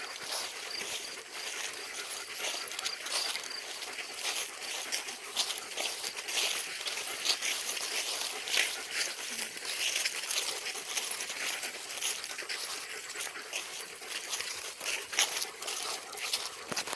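Irregular rustling and crunching of footsteps on a woodland hiking trail, many small crackles close together.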